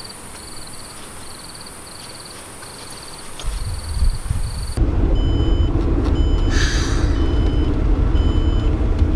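Night insects outdoors: a steady high drone with chirps repeating about one and a half times a second. About five seconds in, this gives way to a car's engine and road rumble heard inside the moving cabin, with faint high beeps repeating.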